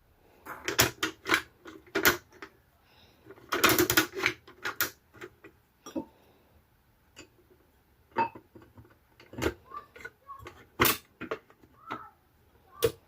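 Irregular clicks, clinks and knocks of a vintage gumball machine's parts being handled and fitted together by hand, coming in small clusters with quiet gaps between them.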